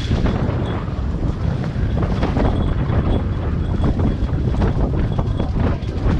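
Wind buffeting the microphone: a loud, gusty low rumble. A faint high steady tone comes and goes behind it.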